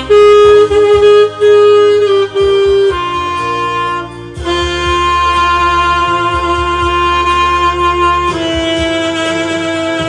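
Saxophone playing a slow melody: a few short repeated notes, then long held notes from about four seconds in.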